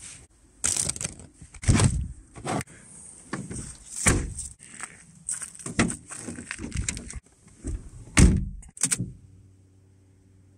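Opel Astra J's body being handled: a string of clunks, knocks and rustles, then a heavy door shutting about eight seconds in. After it a faint steady hum.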